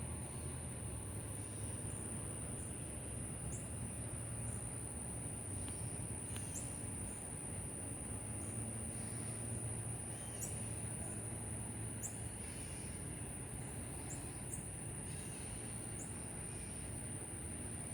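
Night insects singing in a steady, unbroken high-pitched chorus. Short high chirps drop in every second or two over a low background rumble.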